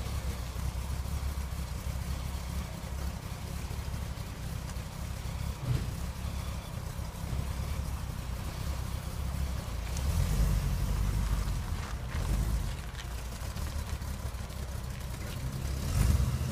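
Small-block Chevy 350 V8 in a 1951 Chevy half-ton pickup, running at idle, getting louder about ten seconds in and again near the end as the truck backs out of the driveway into the street.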